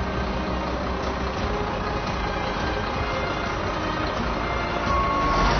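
Heavy underground mining machine engine running with a steady rumble. A single beeping tone, like a reversing alarm, starts near the end.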